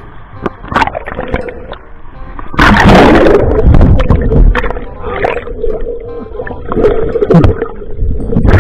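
Water gurgling and bubbling around a camera as it goes underwater about two and a half seconds in, loud and muffled, over background music.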